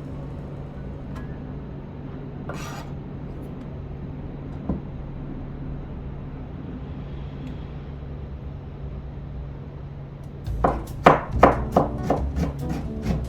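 Kitchen knife slicing stacked tangerine peels into thin strips on a cutting board: quick, regular knocks of the blade on the board, about four or five a second, starting near the end after a stretch of only faint background with a few isolated clicks.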